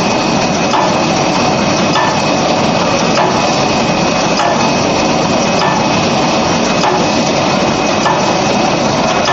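Tulip muffin cup forming machine running, a steady mechanical clatter with a stronger beat recurring a little more than once a second as each cycle forms a cup, over a steady high whine.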